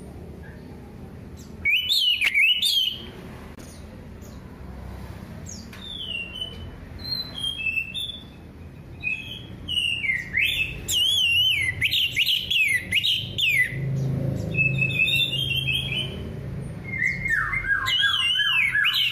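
Orange-headed thrush (anis merah) singing: repeated phrases of quick, warbling notes that swing rapidly up and down in pitch, separated by short pauses, over a faint low hum.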